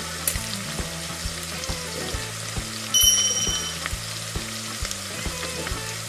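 Sizzling frying-in-oil sound effect, a steady hiss laid over toy cooking. About three seconds in, a short bright chime rings out.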